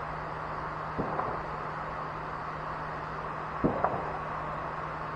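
A few light knocks of tools and parts being handled, one about a second in and two close together near the end, over a steady low hum.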